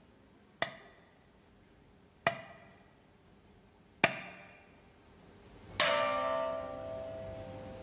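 Tsugaru shamisen struck hard with the plectrum: three sharp single notes spaced about one and a half to two seconds apart, each dying away. Near the end comes a louder strike that keeps ringing with several sustained tones.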